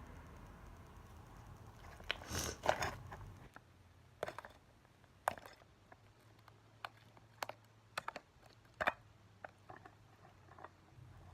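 Slime being handled and squeezed, giving irregular sharp clicks and pops, with a denser crackling cluster a couple of seconds in and then scattered single snaps.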